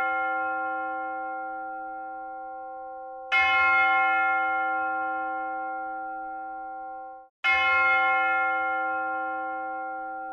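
A single bell tolling slowly, struck about every four seconds, each stroke ringing on and fading. The ring cuts off abruptly just before one of the strokes.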